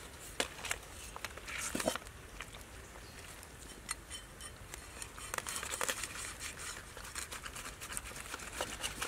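A cleaver blade scraping the scales off a whole red fish on a wooden cutting board: short spells of quick scratchy strokes and small clicks, a few seconds apart.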